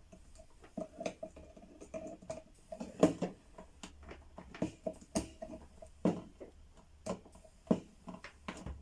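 Irregular clicks and knocks of hand tools and small plastic and metal parts being handled while a hair dryer is taken apart, with a sharper knock about three seconds in and another about five seconds in.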